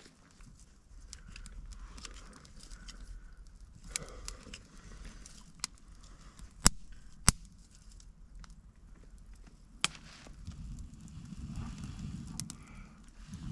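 Campfire crackling: scattered sharp pops, the two loudest close together a little past the middle. A low rushing sound builds over the last three seconds.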